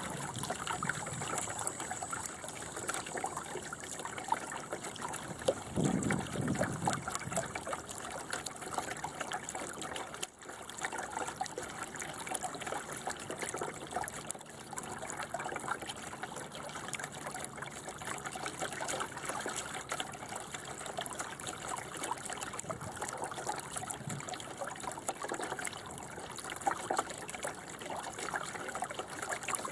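Water trickling and splashing along the hull of a small sailing dinghy under way. A brief low thump comes about six seconds in.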